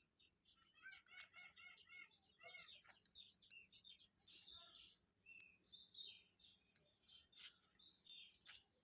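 Faint birdsong: several small birds chirping, with a quick series of repeated rising-and-falling notes about a second in.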